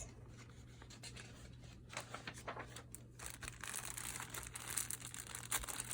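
Faint rustling and crinkling of product packaging as an item is unwrapped, with scattered small crackles that grow busier in the second half.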